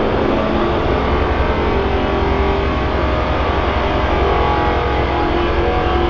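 Milling machine cutting into 20 mm iron plate: a steady, loud machining noise with a few steady tones running through it.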